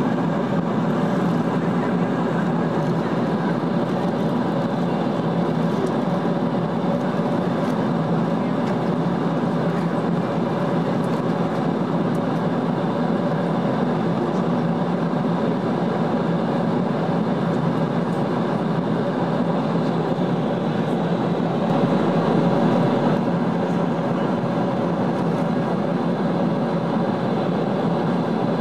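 Steady cabin noise inside a Boeing 777-200 in flight: the drone of its Rolls-Royce Trent engines and the rush of air past the fuselage, a low hum under an even hiss. It swells slightly for a moment about three quarters of the way through.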